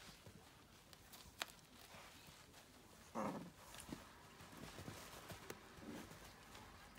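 Faint pattering and shuffling of toy poodle puppies and their mother moving about on a blanket, with a few light clicks and one brief louder sound about three seconds in.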